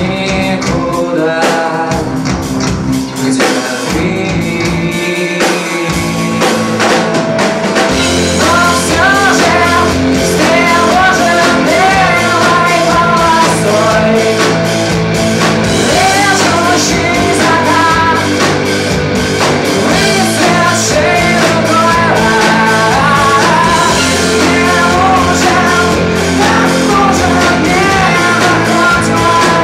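Live rock band playing: drum kit, bass and electric guitar with a man singing. The opening is sparser, and the full band with a heavy low end comes in about eight seconds in.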